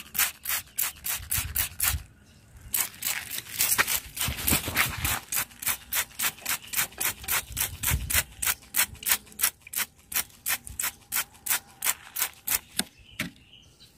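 Hand trigger spray bottle squirting liquid in quick repeated pumps, about four short hissing sprays a second, with a brief pause about two seconds in.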